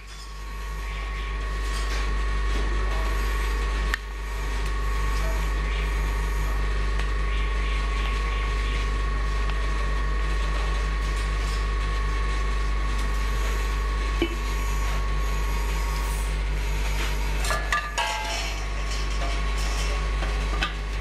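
A machine running with a steady hum and a constant thin whine. A few light metal clicks and knocks from stainless-steel centrifuge bowl parts being handled, with a cluster of them near the end.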